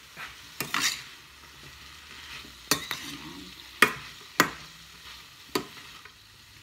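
Metal spoon stirring green beans and shrimp in a stainless steel frying pan, knocking sharply against the pan about five times, over a light steady sizzle of the frying.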